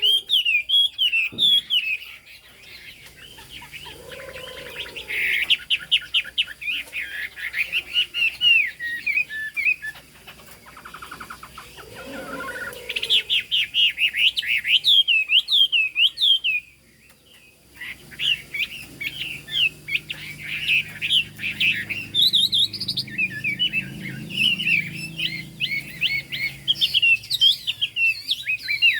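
A Chinese hwamei singing a loud, long, varied song of rapid whistled, sweeping notes, in bursts with short pauses and a brief break about two-thirds of the way through.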